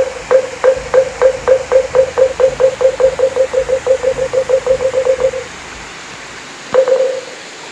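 Buddhist wooden moktak (wooden fish) struck in a quickening roll, one clear hollow pitch, speeding up to about five strokes a second before stopping about five seconds in, then a single last stroke near the end.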